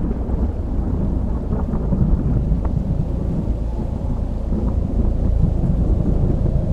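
Deep, steady rumble with a few faint crackles in it, growing a little louder in the last couple of seconds.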